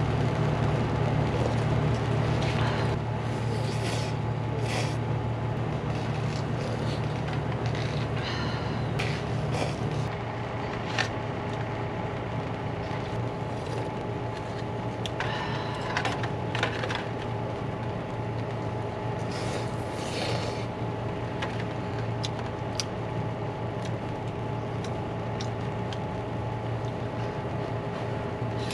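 A person eating ramen: short slurps of noodles and broth from a foil tray, with a few light clicks of utensils. A steady low mechanical hum runs underneath and is stronger in the first ten seconds.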